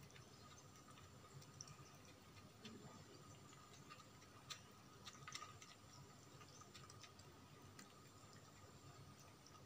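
Near silence with faint, irregular small clicks of two cats chewing food from a clear plastic tray.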